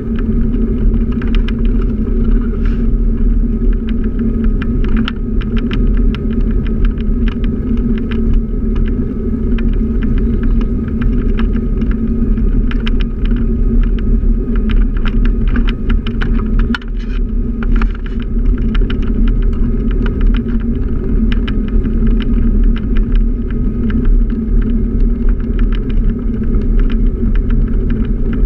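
Scooter riding along a paved street: a steady low rumble and hum, with many small rattles and clicks over it. The rumble dips briefly about seventeen seconds in.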